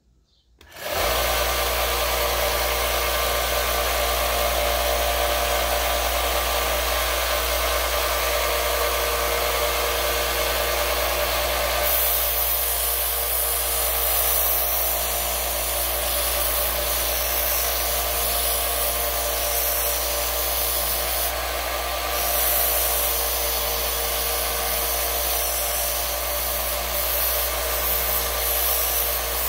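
Small benchtop belt sander switched on about a second in and running steadily with a constant motor hum. From about twelve seconds in, a wooden tool handle is pressed to the moving belt, adding a higher, rasping sanding noise.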